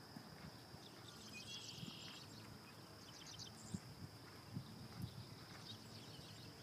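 Faint hoofbeats of a horse cantering on a sand arena, a few soft thumps, with birds chirping and a steady high-pitched whine.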